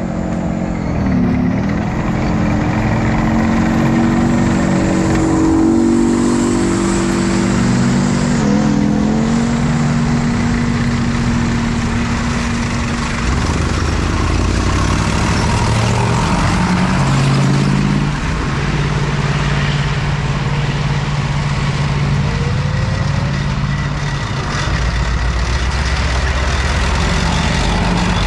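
Diesel engines of tracked armoured vehicles running as a column drives past: a tank, then tracked carriers. The engine note dips and shifts in pitch several times as each vehicle goes by.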